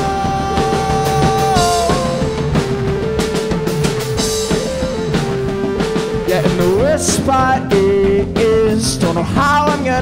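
Indie rock band playing live: drums, electric bass, guitars and keyboards in an instrumental passage. Long held notes sit over the beat in the first couple of seconds, and from about seven seconds in a wavering lead line slides up and down in pitch.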